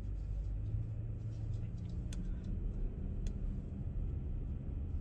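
Steady low rumble of road and engine noise heard inside the cabin of a Kia K8 2.5 sedan being driven, with a couple of faint clicks.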